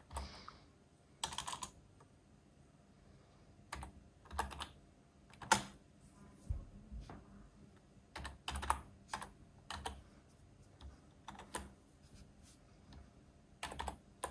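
Typing on a computer keyboard: irregular keystrokes, some single and some in short runs, with pauses between them.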